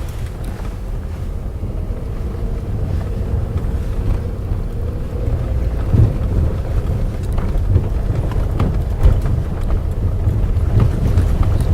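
VW Polo Sedan driving over uneven asphalt, a steady low road rumble with several dull knocks from the front suspension about halfway through and again later. The owner puts these knocks and rattles down to play in the steering rack, the strut mounts and the automatic-gearbox mount.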